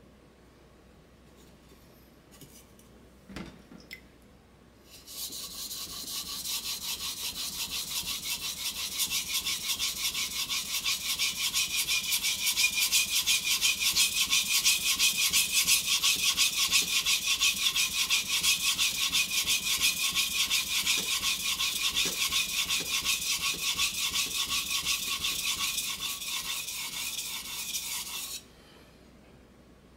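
Steel kitchen knife blade stroked back and forth on a wet whetstone: a steady, rhythmic grinding scrape that starts about five seconds in and cuts off abruptly a little before the end. A few light knocks come before the scraping starts.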